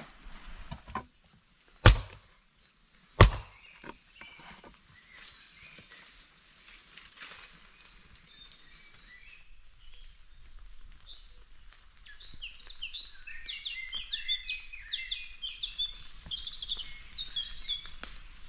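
Songbirds chirping in woodland: a dense chorus of short, high chirps that builds from about ten seconds in. Early on come two loud, sharp cracks a little over a second apart, with a few fainter clicks around them.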